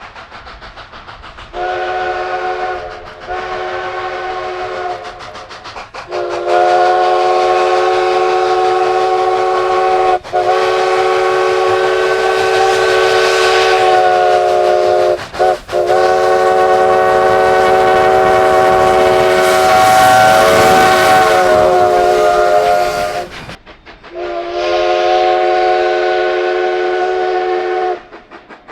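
A locomotive's multi-note chime sounds one steady chord in a series of blasts: two short ones, then three long ones, the longest about eight seconds, and a final blast near the end. A faint rhythmic pulsing from the train runs underneath, and a rising hiss joins the longest blast.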